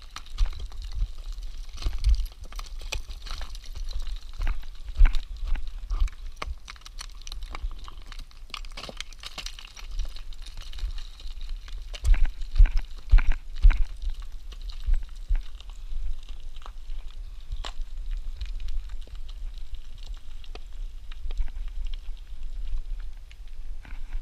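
Footsteps and scrambling over rock and loose stones, an irregular run of crunches, scrapes and knocks with dull thumps at the microphone, busiest about halfway through.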